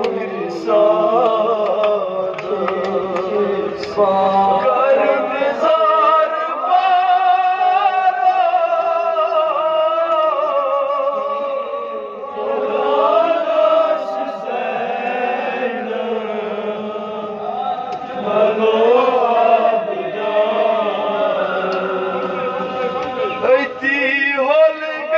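A man chanting a Kashmiri noha, a Shia mourning lament, into a handheld microphone, his voice rising and falling in long drawn-out melodic lines.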